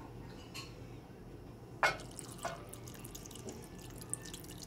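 Cold water poured from a glass cup into a pot of canned wax beans, trickling and dripping into the liquid. A single sharp knock about two seconds in.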